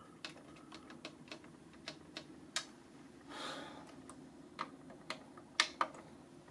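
Front-panel push buttons on a 1998 Broksonic 9-inch TV/VCR combo clicking as they are pressed again and again, stepping through channels; a dozen or so faint, irregular clicks, with a brief soft rush of noise about halfway.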